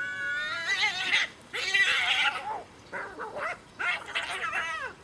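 Two domestic cats fighting: long wavering yowls that rise in pitch, broken about a second in by harsh noisy screeches as they grapple, then more wavering yowls near the end.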